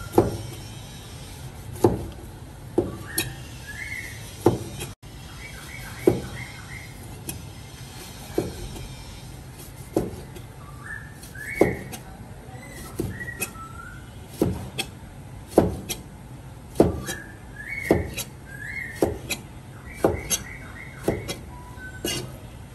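Sharp knocks, one every second or two, with a bird singing short groups of rising whistled notes between them.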